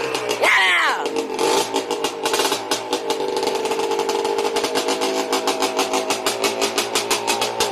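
Freshly rebuilt Yamaha Blaster's 195cc two-stroke single-cylinder engine running just after its first start: a short blip of throttle about half a second in, rising and falling, then steady running with a rapid, even pulse.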